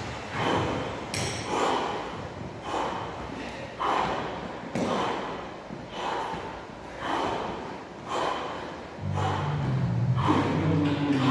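Heavy, rhythmic breathing of an athlete doing burpees over a barbell, forceful exhalations about once a second from hard exertion.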